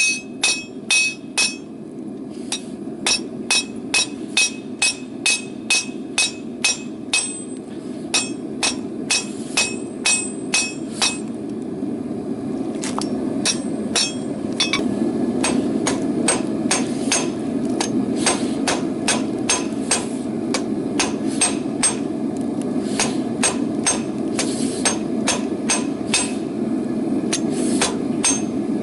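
Hand hammer striking hot rebar on an anvil in a steady rhythm of about two to three blows a second, many blows followed by a brief metallic ring, with two short pauses. A steady low rushing noise runs underneath and grows louder past the middle.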